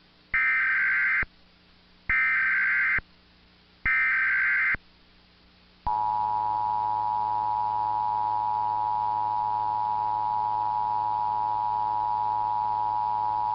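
Emergency Alert System signal: three short bursts of SAME header data tones, each under a second and about two seconds apart, then about six seconds in the steady two-tone EAS attention signal starts and holds. It marks the opening of an emergency alert message, here a national test.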